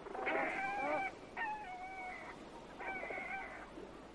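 Flamingo calls: three drawn-out honks about half a second apart, each holding a steady pitch that dips slightly toward its end.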